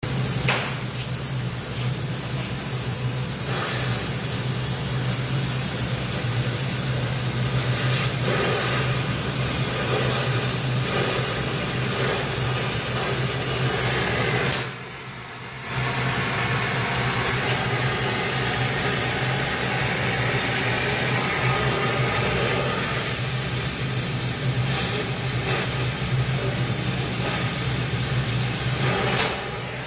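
Oxy-fuel gas torch flame hissing steadily as it heats a steel pipe joint, with a steady low hum underneath. The sound drops out briefly about halfway through.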